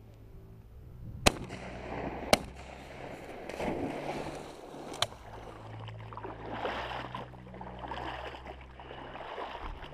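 Two 12-gauge shotgun shots about a second apart, a smaller sharp crack a few seconds later, then a German shorthaired pointer splashing into pond water and swimming through reeds on a retrieve.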